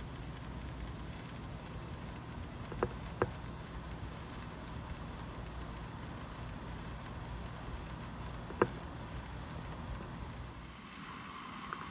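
Rain-O-Mat brass ball-drive full-circle sprinkler running: a steady hiss of water spray, with a few sharp clicks, two close together about three seconds in and one more a little before nine seconds.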